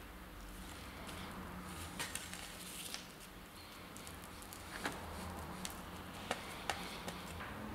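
Faint scraping and scattered light clicks of a palette knife working thick black printing ink out of a tin and onto an inking slab, over a low steady room hum.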